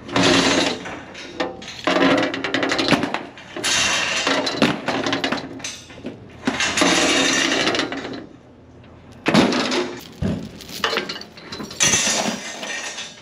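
Steel binder chains clanking and rattling in repeated bursts as they are thrown over and pulled across a trailer load to tie it down.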